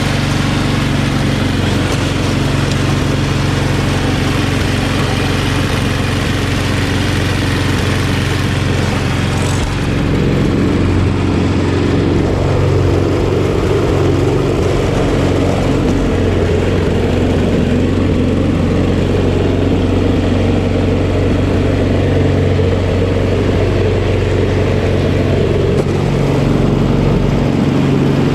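Snowblower engine running steadily; about ten seconds in it grows slightly louder and deeper.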